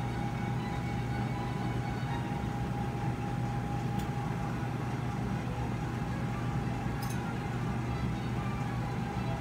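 Steady low machine hum of operating-room equipment and ventilation, with a thin constant tone above it. A couple of faint clicks come through, about four and seven seconds in.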